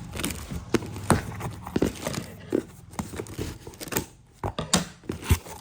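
Parcel packaging being handled: plastic crinkling and tearing, with irregular taps and clicks.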